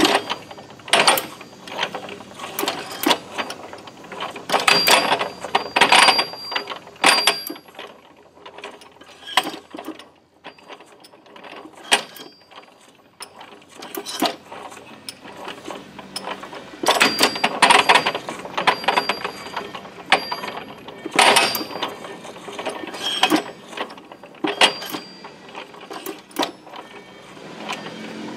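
Steel gears clinking and clattering as the sliding gear clusters in an open lathe headstock gearbox are shifted along their splined shafts, in irregular clusters of clanks with a sparser stretch in the middle.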